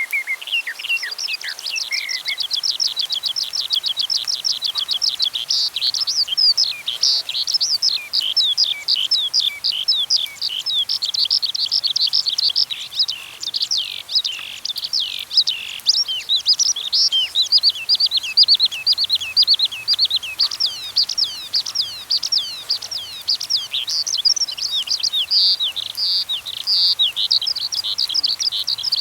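Birds chirping rapidly and continuously in a dense, overlapping chorus of short, high-pitched chirps, with a few lower calls at the start.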